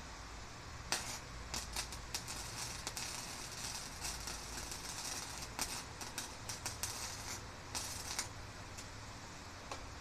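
Electric arc welder crackling and sputtering while a hook is welded onto a garage door spring. It runs in several uneven stretches, starting about a second in and stopping a little before the end.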